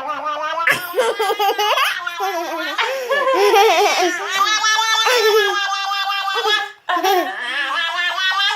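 Baby laughing with high-pitched, wavering vocal noises in a long, nearly unbroken run. It breaks off briefly near the end and starts again.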